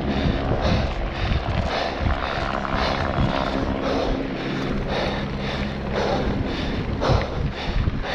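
Wind rushing over the microphone with a mountain bike's knobby tyres rolling fast over loose gravel, the noise pulsing a few times a second.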